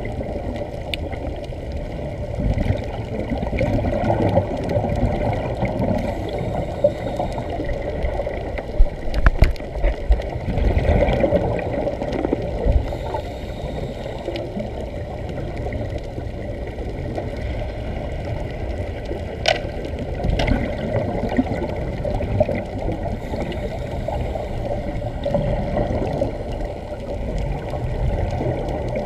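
Underwater sound picked up through a waterproof camera housing: a steady gurgling and bubbling of air venting from Sea Trek diving helmets. A few sharp knocks come around nine to ten seconds in and twice near twenty seconds.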